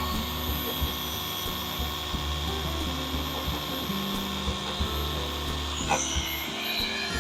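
Electric buffing machine running steadily at low speed with a wool pad and cutting compound, polishing a sanded plastic headlight lens.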